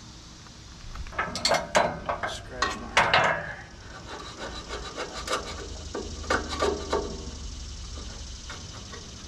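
A hand tool scraping paint off the steel of a sawmill bracket, down to bare metal for welding. It goes in irregular scraping strokes, with a busy run from about one to three and a half seconds in and another short run around six to seven seconds in.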